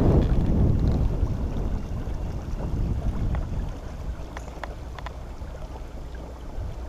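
Wind rumbling on the microphone over water lapping around a kayak, louder at first and easing off, with a few faint light knocks.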